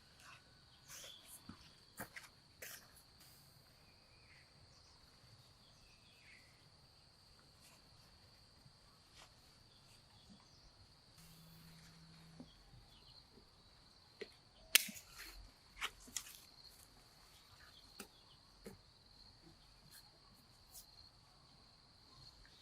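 A steady high-pitched insect drone, like crickets, with scattered soft clicks and knocks, the sharpest about fifteen seconds in.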